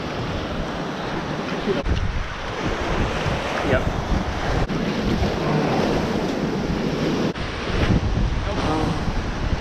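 Surf breaking and washing over a rocky boulder shore, with wind buffeting the microphone, the low rumble heavier from about two seconds in.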